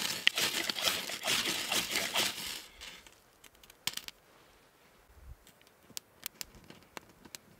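Ferro rod scraped hard with a knife in a quick run of strokes, throwing sparks onto dry tinder to light a fire. After about three seconds the scraping stops and only a few faint scattered clicks remain.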